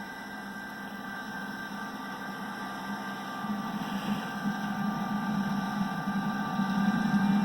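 Combine harvester running, a steady hum with a high whine over it, growing gradually louder.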